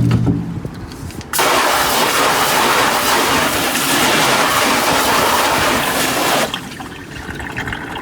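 Hose spray nozzle jetting water onto a screen-printing screen's mesh, rinsing off the degreaser. A steady loud hiss that switches on suddenly about a second and a half in and cuts off about five seconds later.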